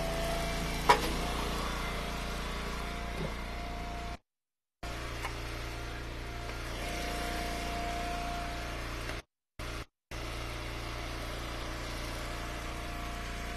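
Wood splitter's engine running steadily, with a sharp knock about a second in. The audio cuts out completely twice for a moment.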